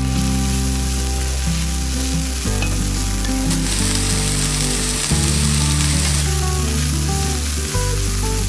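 Sliced onion and carrot sizzling steadily as they fry in fat in a pan, stirred with a wooden spoon. Background music plays underneath.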